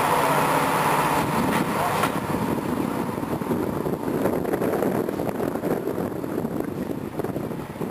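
Class 55 Deltic diesel locomotive pulling a passenger train away, its twin Napier Deltic two-stroke engines working under load, mixed with the coaches rolling on the rails. The sound slowly fades.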